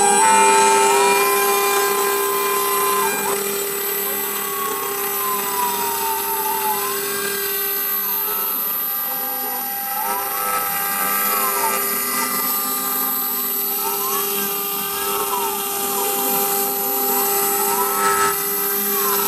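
6040 CNC router's spindle running with a steady high whine as its end mill cuts a disc out of a plastic Cokin ND8 filter card. Over it, the stepper motors' tones slide up and down again and again as the axes trace the curve.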